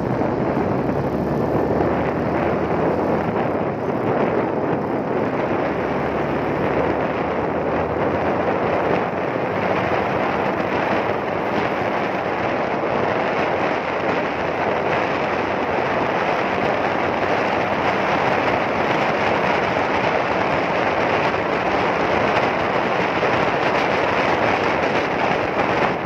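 Loud, steady wind noise booming over a camera mounted at the license-plate holder of a 2019 Yamaha R15 motorcycle ridden at high speed.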